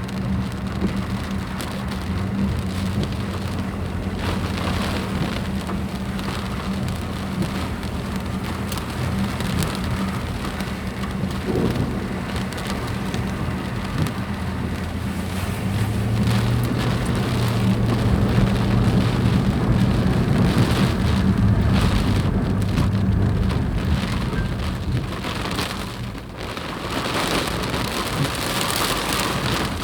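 Steady rush of flash-flood water, with a low steady hum underneath. It grows louder past the middle and dips briefly near the end.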